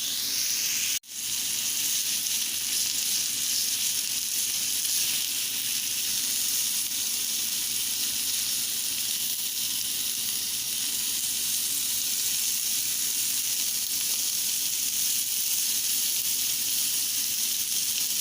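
Seasoned chicken sizzling in a hot pan as it chars, a steady frying hiss. The sound cuts out for an instant about a second in.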